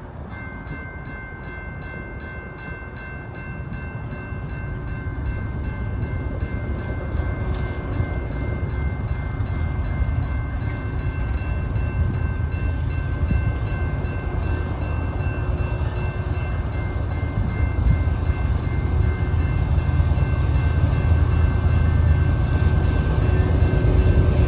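Loaded Canadian Pacific grain train approaching, its low rumble growing steadily louder, with steady high-pitched tones held over it.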